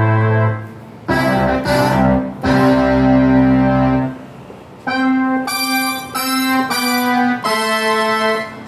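Korg Kross 2 synthesizer played in held chords, each ringing for a second or more with short gaps between. After a pause about four seconds in, a brighter sound comes in with shorter chords struck about every two-thirds of a second.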